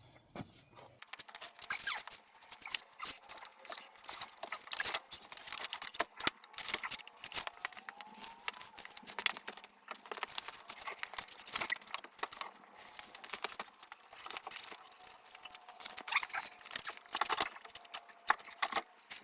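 Irregular clicks, knocks and scrapes as a snowmobile's rear suspension skid is worked into the rubber track, its wheels and slide rails catching on the track's inner lugs, with a brief squeak near the middle.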